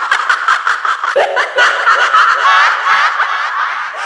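A ghost woman's high-pitched, rapid cackling laugh, used as a horror laugh effect.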